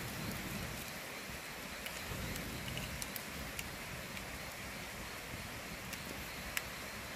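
Open wood fire burning with a steady hiss and sporadic sharp crackles, the loudest about six and a half seconds in.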